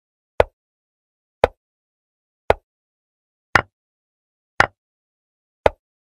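Online chess board's move sound effect: a short click for each move played, six of them evenly spaced about a second apart.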